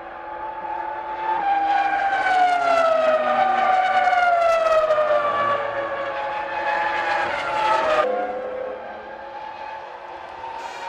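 Formula One car's V10 engine at high revs, its note falling steadily over several seconds. The sound cuts off suddenly about eight seconds in, and a quieter, steadier engine note follows.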